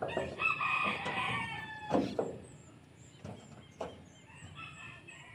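A rooster crowing once, a long call of about two seconds. After it come a few sharp knocks.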